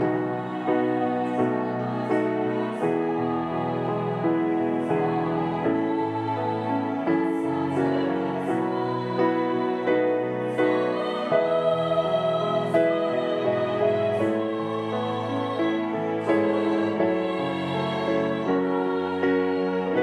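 A women's choir singing a hymn together in long held lines.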